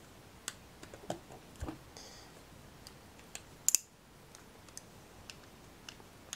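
Handling noise from a plastic phone mount with a phone clamped in it: scattered light clicks and taps, with two sharp clicks close together a little over halfway.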